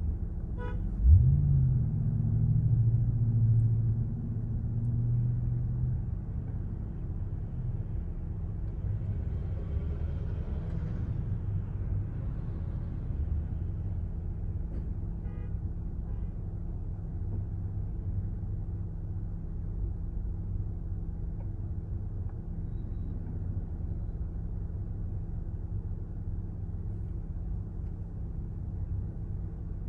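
Motor vehicle engine running close by in a steady low rumble, with a rising engine note about a second in that holds for several seconds before dropping back.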